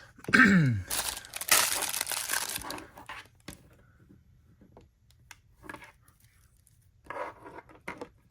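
Thin plastic accessory bag being torn open and crumpled, with a loud burst of crinkling for about two seconds near the start. It is followed by scattered small clicks and rustles as the small plastic pieces are handled.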